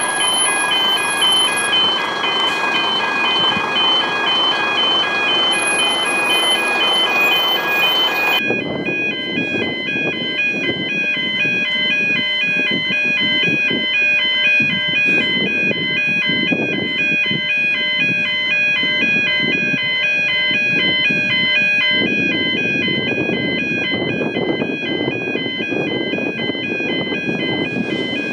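Railway level crossing warning bells ringing continuously, a rapid repeated ding of several high tones, over a background of traffic and outdoor noise that changes abruptly about eight seconds in.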